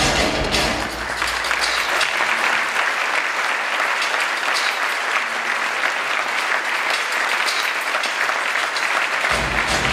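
Audience applauding steadily. The backing music stops about a second in and starts again near the end.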